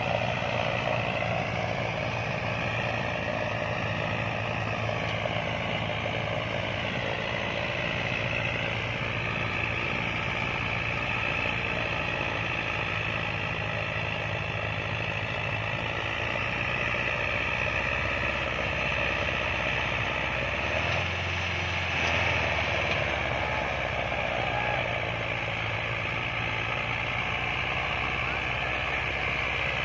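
Tractor diesel engine running steadily under load as it pulls three disc harrows hitched in a row through the soil, a continuous drone with a wavering higher whine in the first few seconds.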